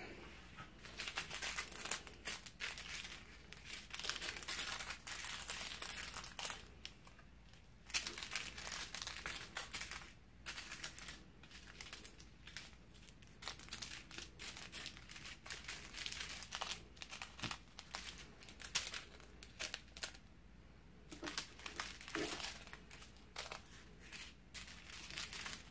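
Small plastic bags of diamond-painting rhinestone drills crinkling as they are picked up and moved around by hand, in irregular bursts with short quiet gaps.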